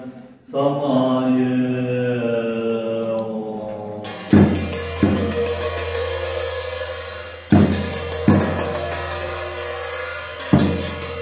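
Group chanting for the first few seconds, then large Tibetan ritual cymbals and a frame drum struck together in pairs of beats about every three seconds, the cymbals ringing between strikes.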